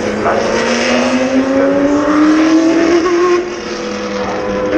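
Historic racing car engine accelerating on the circuit, its pitch climbing steadily for about three seconds, with a short drop about three and a half seconds in before it runs on.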